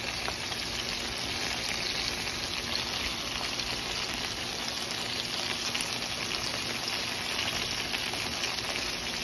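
Large prawns sizzling and crackling steadily in a hot skillet as they fry.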